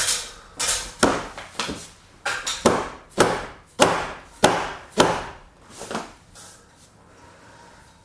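Repeated hard blows of a tool on wood, about one every half second, each with a short ringing tail, stopping about six seconds in.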